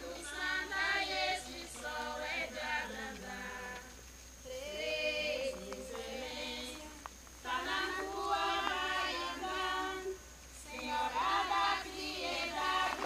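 A group of women singing an incelência, a sung rain litany, unaccompanied in unison. It comes in long phrases with short breaths between them, about four and ten seconds in.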